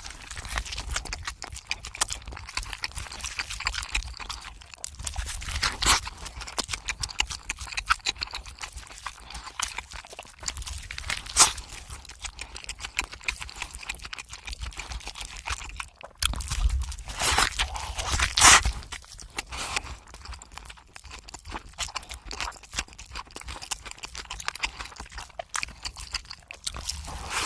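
Close-miked eating: steady wet chewing and crackling crunches, with a handful of louder crisp bites spread through.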